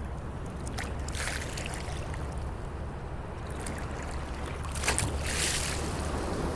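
Sea waves washing in at the shore, with two hissing surges, one about a second in and a stronger one near the end, over a steady low rumble.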